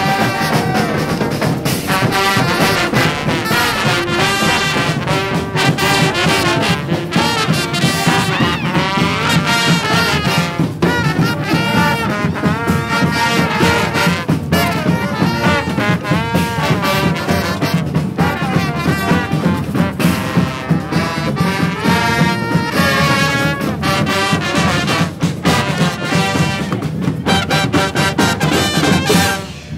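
Street brass band playing, trombones and trumpets with sharp percussion hits, the music cutting off near the end.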